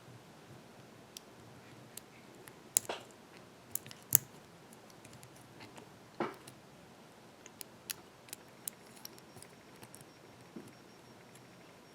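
Lock pick working the pin stack of an American 5570 padlock: scattered small metallic clicks and scrapes, with a few louder clicks about three, four and six seconds in, and a quick run of light ticks a little later.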